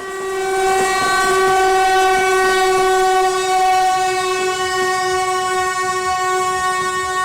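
Train horn sounding one long, steady blast as the train approaches, with faint train rumble beneath.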